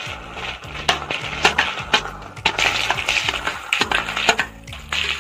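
Sliced onions scraped off a steel plate into hot oil in a kadhai, hissing as they hit the oil. Repeated sharp metal clinks of a spoon against the plate sound on top.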